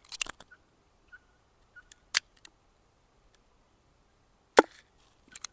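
Sharp metallic clicks of a spring-assisted folding knife's blade snapping open and being folded shut: a few clicks at the start, one about two seconds in, a louder one after about four and a half seconds, and faint ticks near the end.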